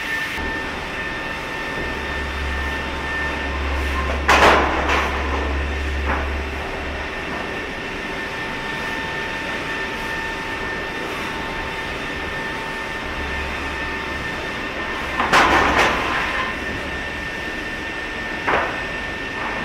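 Automatic wood planer line running with a steady machine hum, broken by two loud clattering knocks of wood and metal about four and fifteen seconds in, and a smaller knock near the end.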